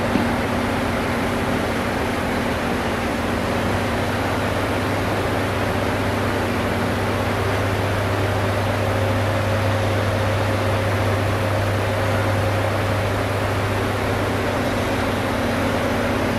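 Steady machine hum with an even hiss over it, like air-conditioning or fans running in a large room; no clanks of weights stand out.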